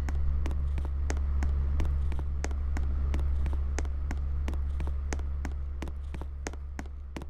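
Passenger lift standing at a floor: a steady low electrical hum from its machinery, with irregular clicks and ticks, about two or three a second.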